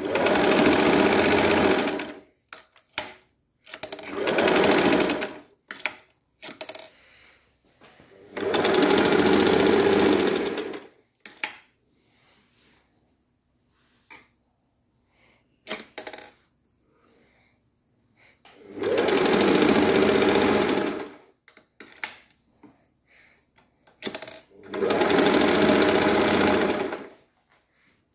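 Singer Model 315 sewing machine running and stitching through fabric in five runs of two to three seconds each, with short clicks and knocks in the pauses between runs.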